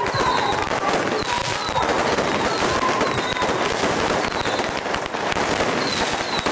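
Strings of firecrackers going off in a dense, continuous crackle that does not let up.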